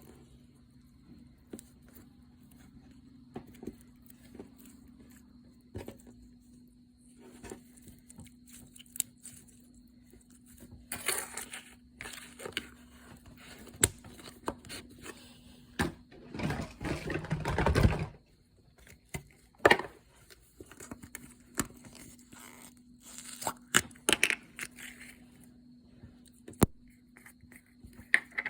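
Slime being handled, making scattered small crackles and clicks, with a denser run of crackling about two-thirds of the way through. A faint steady hum sits underneath.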